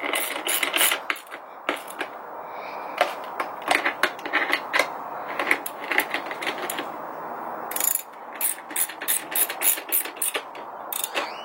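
Ratchet wrench clicking in quick runs of strokes as 10 mm bolts are tightened, with short pauses between runs.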